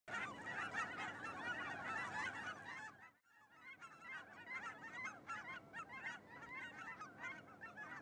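A flock of wild geese honking, many calls overlapping. The calling breaks off for a moment about three seconds in, then carries on more thinly.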